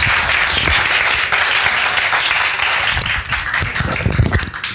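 Audience applauding, many people clapping together; the clapping thins out near the end.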